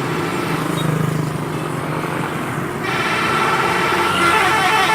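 A bus engine running, then about three seconds in a telolet horn, the multi-trumpet musical air horn of Indonesian buses, starts sounding held notes that thicken into a chord near the end.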